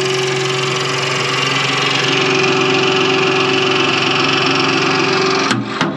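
Milwaukee cordless hydraulic knockout tool running steadily as it draws a punch through the sheet-metal wall of an electrical enclosure. It cuts off with a sharp click about five and a half seconds in, then a couple more clicks follow.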